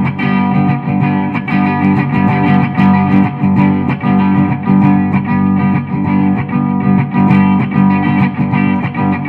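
Electric guitar played through a Marshall CODE 100 modelling amp and its 4x12 cabinet: a chugging, strummed rhythm part with a bit of delay on the preset.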